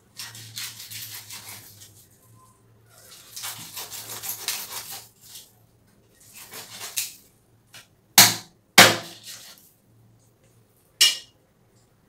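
A large knife scraping scales off a milkfish in three spells of scraping strokes. Then come three sharp chops, the loudest sounds, as the blade cuts through the fish into a wooden chopping block: two in quick succession and one about two seconds later.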